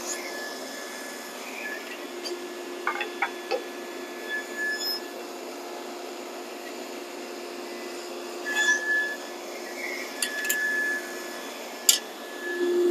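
Table saw running with a steady hum, with light clicks and clinks as the wood and a plastic push stick are handled on the saw table, and one sharp click near the end.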